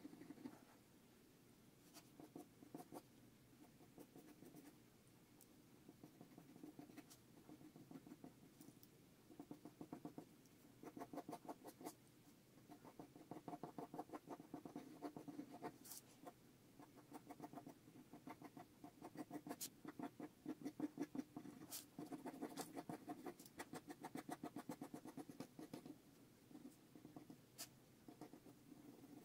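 Faint scratching of a mechanical pencil's graphite on paper during sketching. Runs of rapid short back-and-forth strokes come in bursts, with brief pauses between them.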